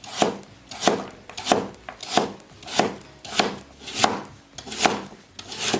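Kitchen knife slicing a white radish into thin slices, in an even rhythm of about nine cuts, one every two-thirds of a second.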